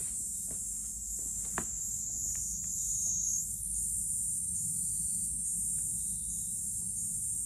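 Insects singing outdoors, a steady high-pitched chorus, over a low steady rumble. A few faint clicks in the first two seconds.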